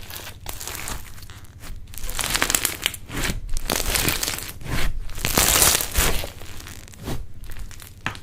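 Slime being stretched and squeezed by hand, giving a dense run of small crackles and pops that is loudest in the middle and dies down near the end.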